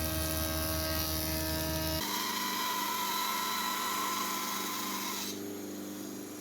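A power tool's electric motor running steadily with a held whine. The sound changes abruptly about two seconds in and again near the end, as if cut between takes of the tool.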